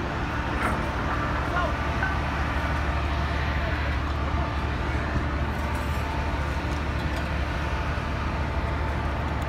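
Steady low drone of a cargo ship's machinery, with an even rushing haze over it.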